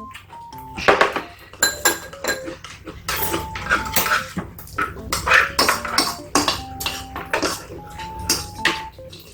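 Eating utensils clinking and tapping against bowls and dishes, many sharp irregular strikes, over quiet background music of held notes.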